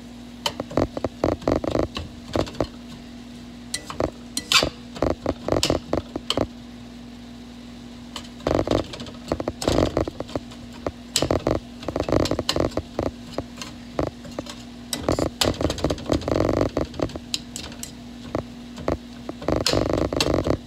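A black slotted spatula scrapes and knocks against a stainless steel skillet as ground turkey with onion and herbs is stirred. It comes in irregular clattering bursts with short pauses, over a steady low hum.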